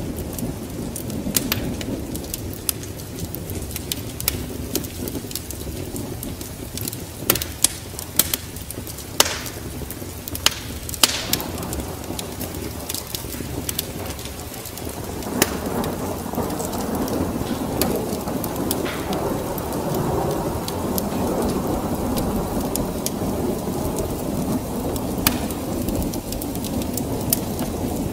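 Wood fire crackling with sharp pops, over steady rain. About halfway through, a low rumble of thunder swells in and holds.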